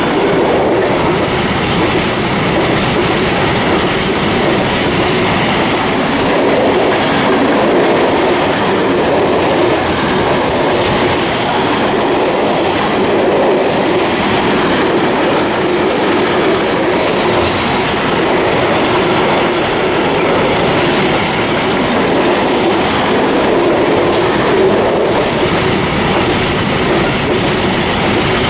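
Container freight wagons rolling past, a steady rumble of steel wheels on rail with the clickety-clack of wheels crossing rail joints.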